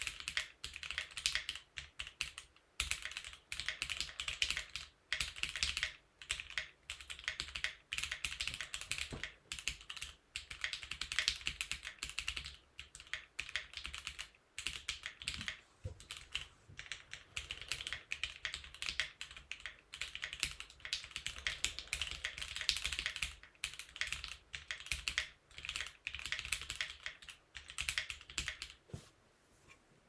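Fast touch-typing on a Monsgeek M1 aluminium-cased mechanical keyboard with no foam inside, stock Gateron Pro Yellow linear switches, lubed stabilisers and GMK keycaps: a rapid stream of keystroke clacks in runs with brief pauses, stopping about a second before the end.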